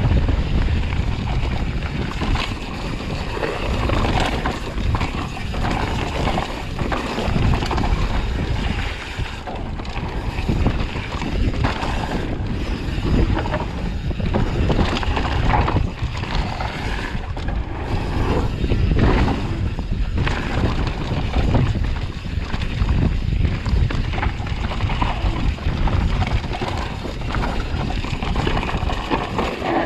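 Mountain bike riding down a bike-park trail, heard from a camera on the bike or rider. Wind buffets the microphone, and tyres rumble over dirt while the bike rattles and knocks over bumps.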